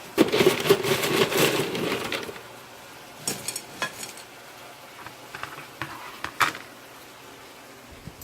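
Kitchen handling noise: a rattling, crinkling clatter for about two seconds, then a few light clicks and taps.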